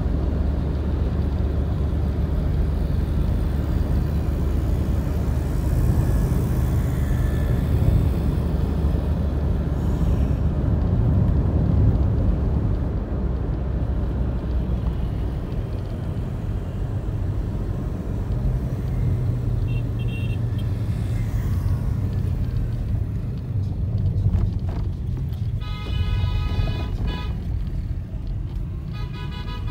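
Steady rumble of road and engine noise from a moving vehicle on a highway. Near the end a vehicle horn sounds twice, once for about a second and then again briefly.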